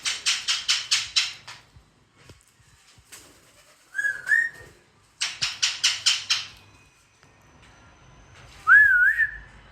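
Parrots calling: two runs of rapid harsh screeches, about five a second, each lasting around a second and a half. Short wavering whistled notes come between and at the end.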